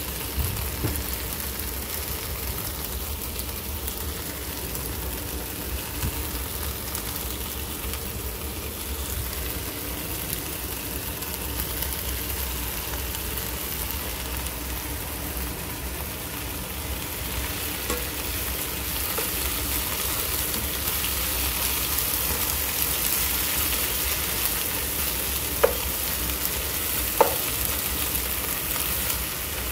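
Chopped onion, eggplant and sweet peppers sizzling as they fry in a skillet and are stirred with a spatula; the sizzle grows a little louder in the second half. Two sharp clicks near the end, as the spatula knocks the pan.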